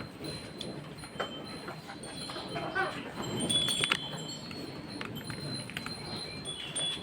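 Light metallic clinks with high ringing tones, busiest about three to four seconds in, in a cow milking shed.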